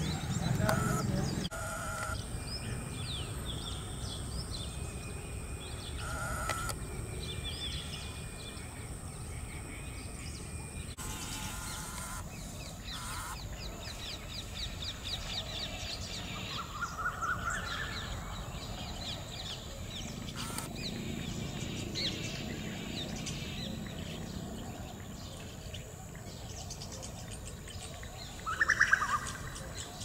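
Birds chirping and calling in the open, a scatter of short high notes throughout over a low background rumble. A louder run of quick chirps comes about halfway through and again near the end.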